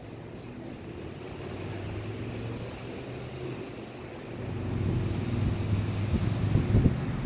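A motorboat engine runs with a steady low drone that grows louder about four seconds in. Wind buffets the microphone near the end.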